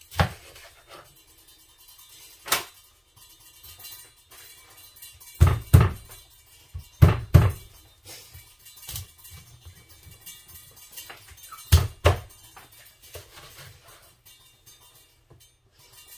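Knife chopping through bluefin tuna onto a cutting board: about nine heavy thunks at irregular intervals, several in quick pairs.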